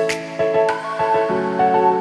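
Instrumental background music with several held notes and a slowly moving melody.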